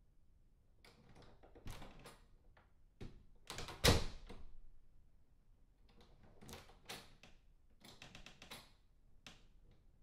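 A door closing with one heavy thud about four seconds in, with smaller latch and handle clicks before it and a quicker run of lock clicks and rattles after it.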